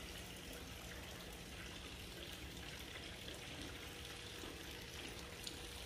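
Faint, steady trickling and splashing of water from a small tiered courtyard fountain.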